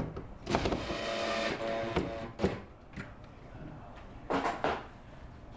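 Small handheld power tool's electric motor whirring in short bursts: a longer run about half a second in, then brief clicks and another short burst near the end.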